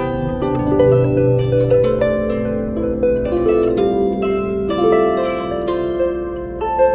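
A lyre harp plucked in a steady run of notes, each string ringing on so that several notes sound together.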